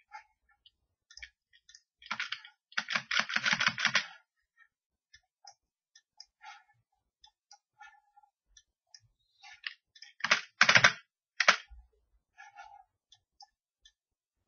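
Computer keyboard typing and mouse clicks: scattered single clicks, with a quick run of keystrokes about two seconds in and a few louder ones around ten seconds in.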